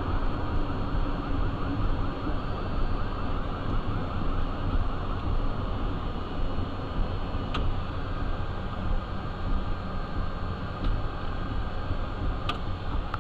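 Cessna Citation 501's Pratt & Whitney JT15D turbofans running at taxi power, heard in the cockpit: a steady rushing rumble with a high turbine whine over it, and a couple of brief clicks.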